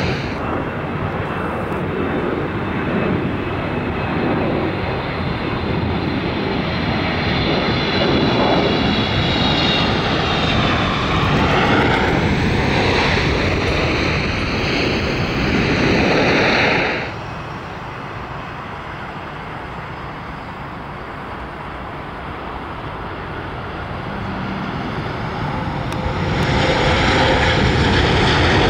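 Jet engines of landing airliners rolling out on the runway, a Boeing 757, then a Boeing 777, then an Airbus A330: a loud, steady jet rush with a sweeping, phasing tone as each aircraft passes. The sound drops sharply a little over halfway through, then builds again near the end as the next aircraft comes by.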